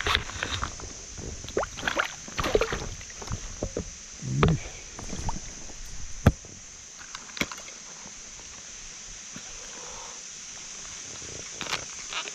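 Water splashing and sloshing, with knocks and clicks, as a landed rainbow trout is slipped into a mesh keep net hanging in the lake beside a float tube. The handling noises are busiest in the first six seconds, with one low thump and a sharp click, then thin out to a few faint clicks.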